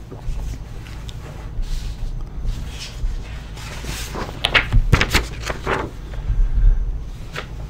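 Handling noise: a scatter of short knocks and clicks, most of them about four to six seconds in, over a low steady hum.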